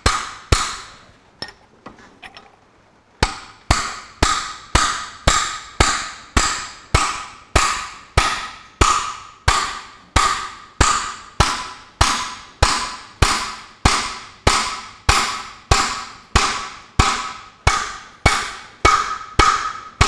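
Hammer blows on the steel king pin assembly of a grey Ferguson tractor's front axle, tapping a part down over the king pin's key. A few blows, a short pause, then a long even run of blows, about two and a half a second, each with a metallic ring.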